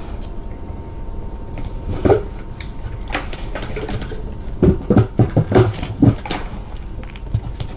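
Kittens playing against a felt basket right at the microphone: a steady low rumble under scattered rustles and clicks, with a cluster of louder knocks about five seconds in.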